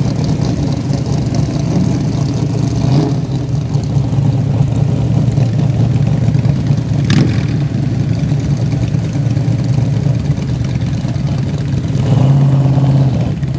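Car engines running as cars drive slowly past, a steady low rumble, with one sharp click about seven seconds in and a louder, held engine note near the end.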